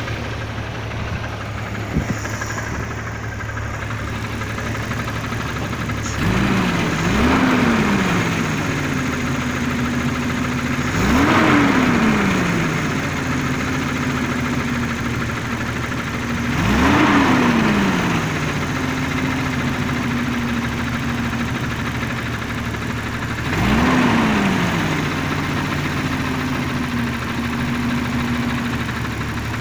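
Recurring machine noise carried through a building: a steady low hum, with a thump and a whine that rises quickly and sinks back four times, about every five to seven seconds.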